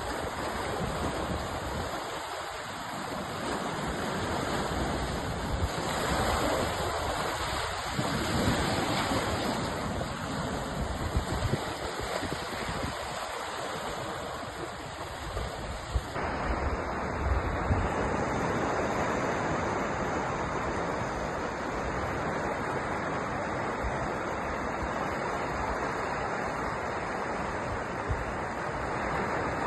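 Ocean surf: waves washing ashore in a continuous rush of noise that swells and eases, with an abrupt change in tone about halfway through.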